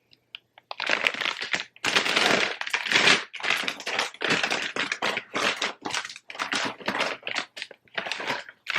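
Crinkly plastic snack bag being handled, rustling and crackling in a string of bursts with short gaps.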